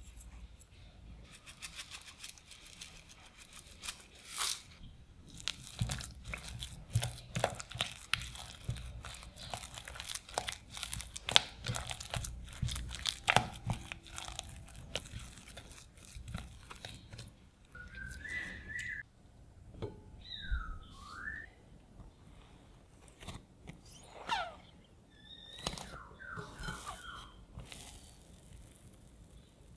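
Silicone spatula stirring and scraping a thick mashed potato mixture in a glass bowl: a dense run of small wet clicks and scrapes. In the second half the sounds thin out, with a few short squeaks, and near the end sticky risen bread dough is pulled away from a cloth in a glass bowl.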